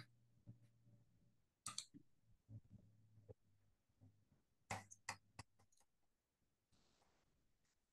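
Faint computer keyboard keystrokes: a single click about two seconds in, then a quick run of several clicks about five seconds in.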